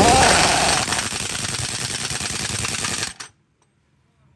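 Pneumatic impact wrench hammering on a truck wheel nut. It starts with a brief whine, runs for about three seconds and then cuts off suddenly.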